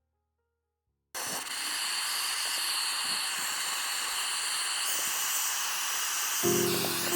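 Compressed air hissing steadily from a blasting or spray gun, cutting in abruptly about a second in. A steady pitched tone joins near the end.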